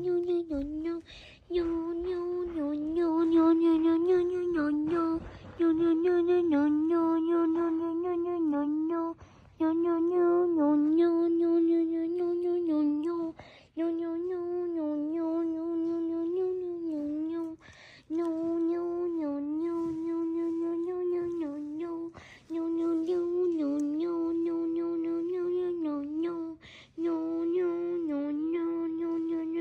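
A voice humming one steady note over and over, in phrases of about three to four seconds with short breaks and brief dips in pitch.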